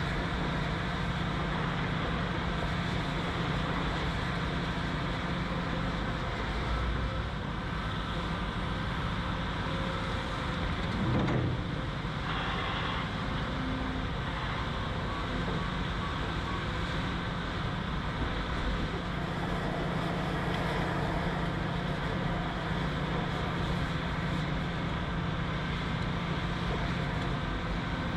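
Heavy construction machinery's diesel engine running steadily with a low hum, swelling briefly about eleven seconds in.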